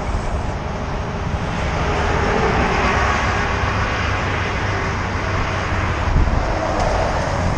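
Steady rushing of wind over a moving bicycle-mounted camera's microphone, mixed with the noise of road traffic passing alongside.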